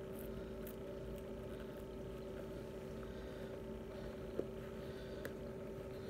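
A faint, steady hum with a few low tones, with a sharp click about four seconds in and a smaller one a second later, as hands handle a pair of Salomon trail-running shoes.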